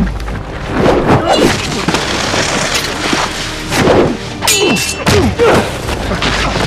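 Sword-fight sound effects from a film mix: a rapid run of heavy hits and thuds as blades and bodies clash, with one sharp ringing metallic clash about four and a half seconds in. A deep, booming film score runs underneath.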